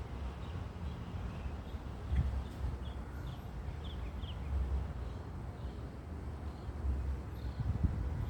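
A few short, high bird chirps, clustered about two to four seconds in, over a steady low rumble.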